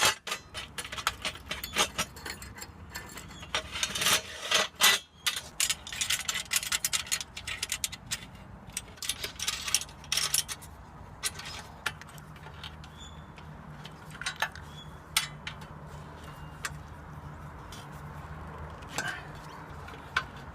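Clinks, knocks and scrapes of metal solar-panel mounting hardware being handled and fitted into its rails, busy for the first several seconds and then scattered.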